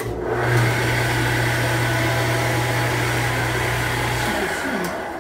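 Electric bench polishing machine switched on and running: a steady motor hum under a loud high whir from the spinning polishing wheel. The hum stops about four seconds in and the whir dies away after it.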